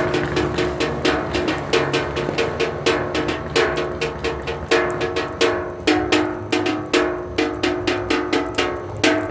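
Fast, repeated clanging on ringing metal, about four or five strikes a second, stopping after a last loud strike at the end.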